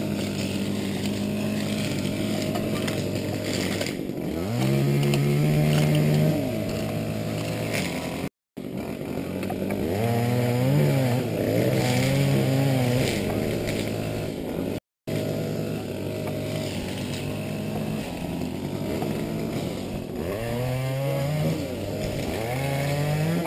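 Small engine idling steadily and revving up and back down three times: about four seconds in, from about ten to thirteen seconds, and near the end.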